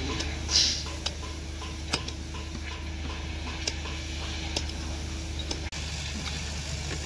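Building-site background: a steady low hum with scattered light clicks and taps, and a short hiss about half a second in.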